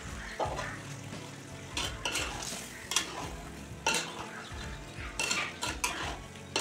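Spatula stirring chicken in an earthenware pot, with several sharp scrapes and clinks against the pot over the sizzle of the cooking gravy.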